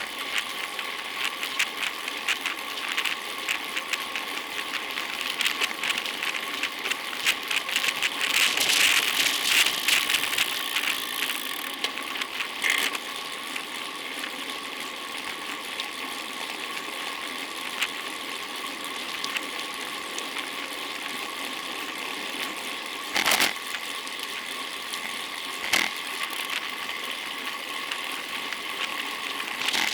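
Road bicycle in motion: steady tyre and wind noise with fine, fast rattling and ticking from the bike, louder for a few seconds about a third of the way in, and two sharp knocks near the end.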